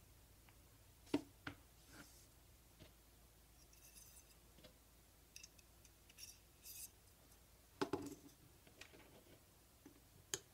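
Light clicks and knocks of a knife-sharpening jig's metal rod and wooden end blocks being handled and fitted together, with brief high metallic scraping from the rod's thread in between. The loudest knocks come about three-quarters of the way through.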